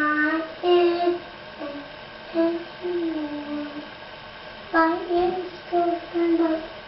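A young child singing a wordless tune in a string of short held notes, with a pause in the middle.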